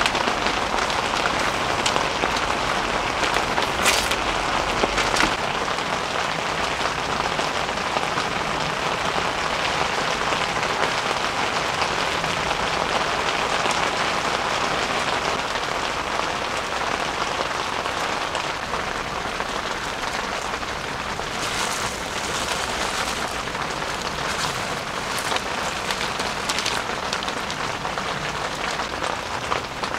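Heavy rain drumming steadily on the tent fabric, heard from inside the tent, with a few brief clicks.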